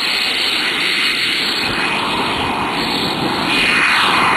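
Turbine engine of a radio-controlled A-10 model jet running at high power on its takeoff run and climb-out: a steady high whine over a rushing jet noise, growing louder about three and a half seconds in.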